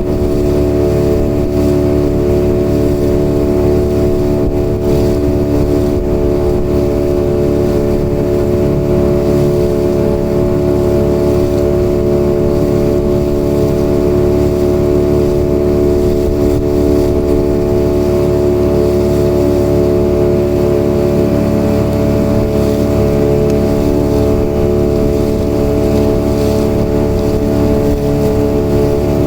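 Outboard motor on a small motorboat running at a steady speed, a constant droning hum with no change in pitch.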